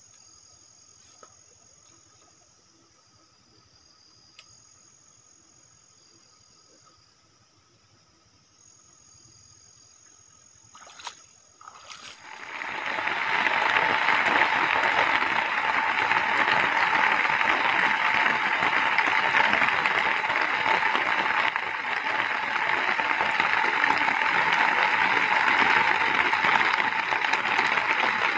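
Faint steady insect chirring, then about twelve seconds in heavy rain starts suddenly and keeps falling as a loud, even hiss.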